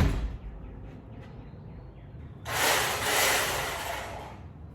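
A door shuts with a thud. About two and a half seconds later a loud hissing noise swells and fades over about two seconds.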